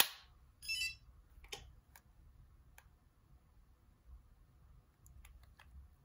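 Button clicks on a Sony CMD-Z5 mobile phone as its keys are pressed. There is a sharp click at the start, then a short electronic chirp from the phone just under a second in, then scattered clicks with a quick run of them near the end.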